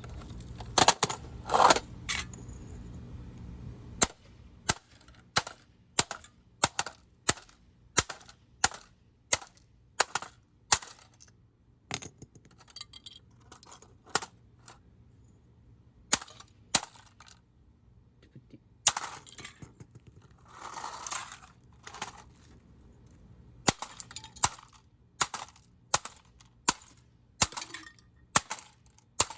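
A vintage 1987 GE alarm clock radio being smashed: a long series of sharp, evenly spaced blows, about one or two a second. A few louder crashes come near the start, and there is a rougher, noisier stretch in the middle.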